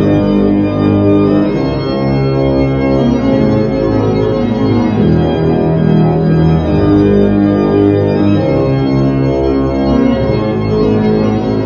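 Background music: an organ playing slow, long-held chords.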